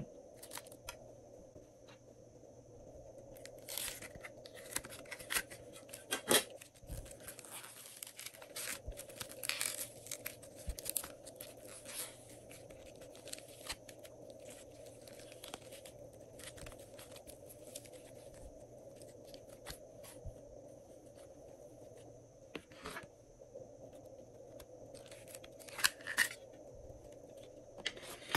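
Glossy slime being worked by hand: sticky clicks, crackles and snaps as it is stretched and pulled apart, busiest in the first half, with a few sharper snaps near the end, over a faint steady hum.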